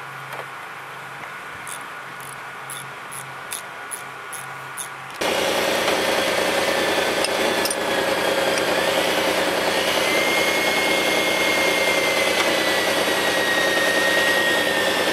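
A large engine running steadily with a whine that rises slightly and then slowly sinks, cutting in abruptly about five seconds in. Before that there is only a low hum with faint light ticks.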